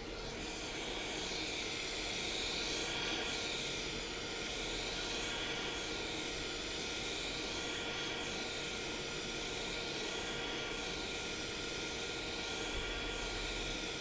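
A small fan or blower spinning up just before and then running steadily: an airy rush with a faint steady hum and a slow whooshing swell every couple of seconds.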